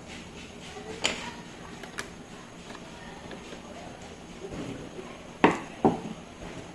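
A few light clicks, then two sharp knocks close together about a second before the end: tools and plastic parts of an inkjet printer being handled while it is taken apart to remove its screws.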